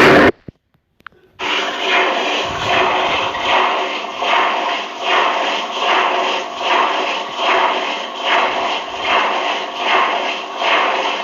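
Washing machine running a wash cycle: a rhythmic swish of water and laundry in the turning drum, swelling about one and a half times a second over a steady hum. It starts about a second and a half in, after a brief silence.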